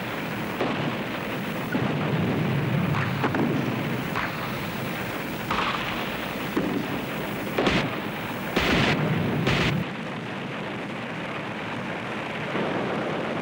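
Battle sounds: explosions and bangs of gunfire over a continuous rumble. The sharpest and loudest blasts come about 7.5 to 10 seconds in.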